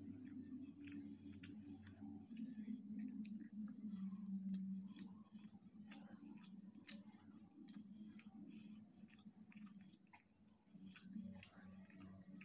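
Fingers mixing and squeezing fried rice on a steel plate, with chewing: a run of small wet clicks and crackles, one sharp click about seven seconds in, over a low hum.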